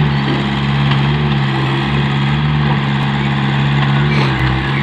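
Komatsu PC58 mini excavator's diesel engine running at a steady speed while the boom and bucket are worked.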